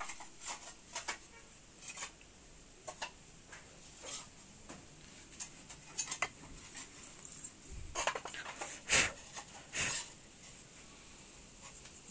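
Fired clay pots clinking and knocking against one another as they are handled, in irregular clicks and taps. A few louder knocks come about three-quarters of the way through.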